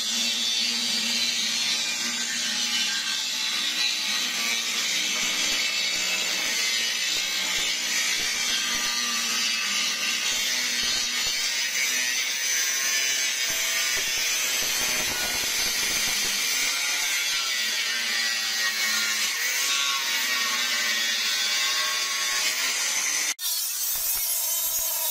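Angle grinder with an abrasive cut-off disc cutting through a sheet-steel drum: a steady, harsh grinding hiss over the motor's whine, with a short break near the end.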